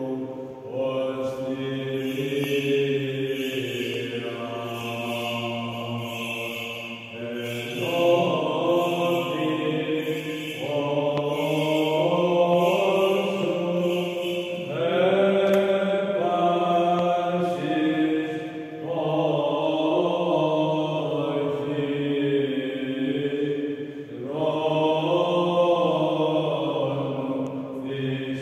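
Byzantine chant sung by a small group of male chanters: a melody in long phrases of a few seconds each, rising and falling, over a steady held low note (the ison drone).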